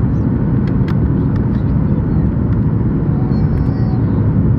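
Steady low rumble of a Boeing 737-8 MAX heard from inside the passenger cabin: engine and airflow noise at an even level, with a few faint ticks and rattles.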